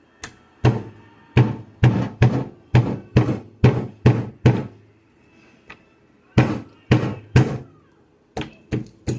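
Wood being split for kindling with a Masterforce Carpenters folding knife: a run of about ten sharp wooden knocks, roughly two a second, a short pause, three more knocks, then lighter, quicker knocks near the end.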